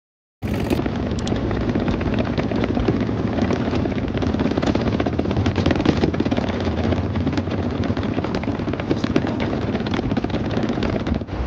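Wheels of a hard-shell rolling suitcase rattling over brick paving: a continuous rough rumble dense with small clicks, starting abruptly.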